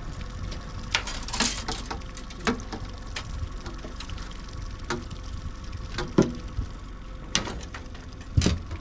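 Irregular clicks and knocks of fishing gear being handled in a boat, over the steady low hum of the outboard motor running at trolling speed.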